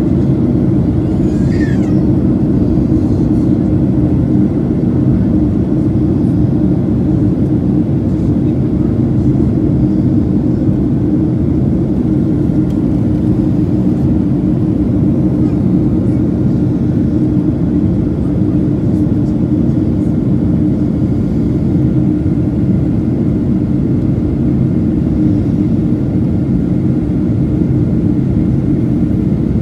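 Steady cabin noise of a jet airliner in flight, heard at a window seat beside the wing engine: an even, unbroken roar with a low steady hum.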